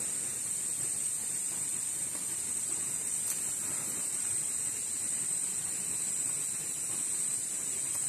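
Steady high-pitched drone of insects in the undergrowth, one even shrill hiss that does not change.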